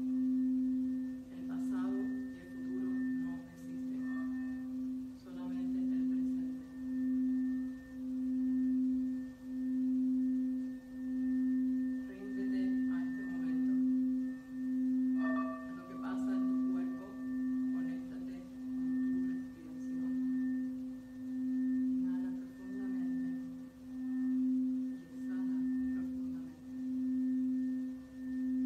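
Red crystal singing bowl being rimmed with a mallet: one sustained low tone with faint higher overtones, swelling and fading in a slow, even pulse as the mallet circles the rim.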